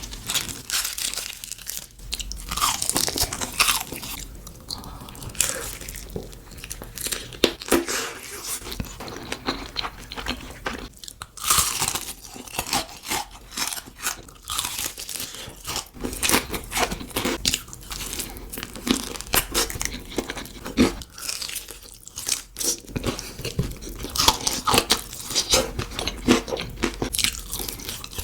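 Biting and chewing crispy, crunchy food, with rapid, irregular loud crunches close to the microphone.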